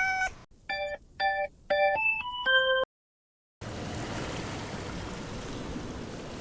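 A short electronic intro jingle: a rising swoop, then a quick run of chiming beeps, three on the same notes and then a few climbing higher. It cuts off under three seconds in, and after a brief gap comes a steady rushing noise of wind and surf.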